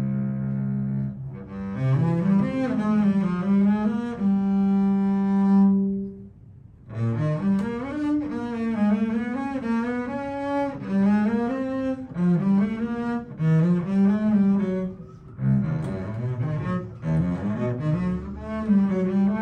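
Solo double bass played with the bow: a slow melodic passage of held notes with vibrato and sliding between pitches, in phrases with a brief pause about six seconds in and a shorter one about fifteen seconds in.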